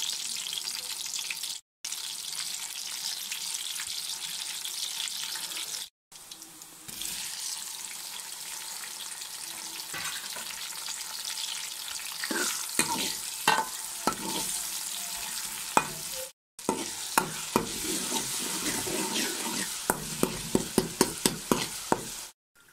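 Sliced onions and then chopped tomatoes sizzling in hot oil in a pot, with a steady frying hiss. In the second half, sharp clicks and scrapes of a cooking utensil against the pot come in, quickening near the end. The sound cuts out briefly several times.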